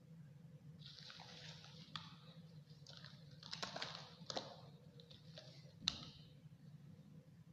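Faint rustling and rubbing of hands handling latex modelling balloons, in several short bursts with small clicks, and one sharp tap about six seconds in. A steady low hum runs underneath.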